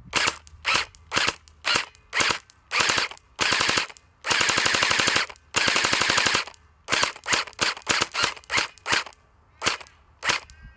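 Battery-powered JinMing M4A1 Gen 8 gel blaster firing its electric gearbox. It fires a string of single shots and short rapid bursts, with two longer bursts of about a second each near the middle.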